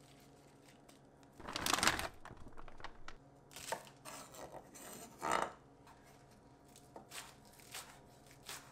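Vegetable prep on a wooden cutting board: a bunch of broccolini rustles as it is moved, then a chef's knife cuts green onions with a few scattered knocks on the board.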